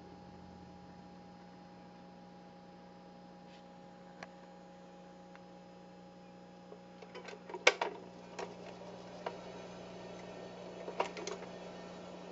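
Surface noise of an old 78 rpm shellac record turning before the music begins: a steady low hum and faint hiss, with scattered clicks and a burst of loud crackles a little past halfway, then more crackles near the end.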